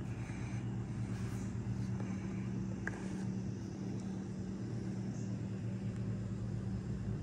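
A steady low mechanical hum, with a faint click about three seconds in.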